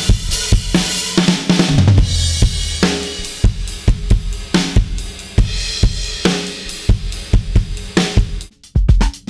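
Acoustic drum kit playing a rock groove of kick drum, snare and washing cymbals. Near the end the playing stops for a moment, then a dance beat of shorter, drier hits begins.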